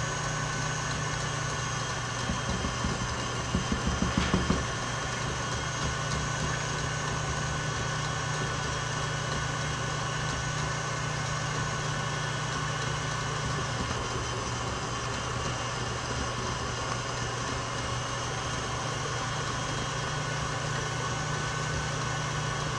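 Stand mixer motor running steadily, beating buttercream while softened butter is added in portions. A few short knocks come about three to four seconds in.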